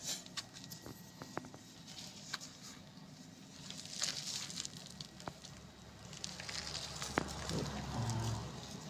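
Quiet handling sounds from a cloth-wrapped bonsai stump: cloth rustling, hands rubbing rough bark, and scattered small clicks and crackles. A faint low hum comes in during the second half.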